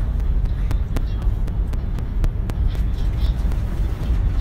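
Steady low rumble of a vehicle's passenger cabin in motion, with frequent small clicks a few times a second.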